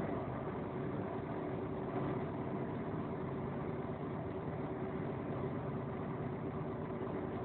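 Steady drone of a moving vehicle's engine and tyres on a wet road, heard from inside the cab.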